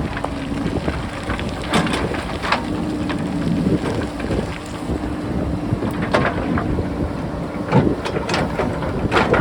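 JCB backhoe loader's diesel engine running under load with a steady drone, broken by sharp knocks and scrapes as the machine works the rock, several of them about two and six seconds in and a cluster near the end.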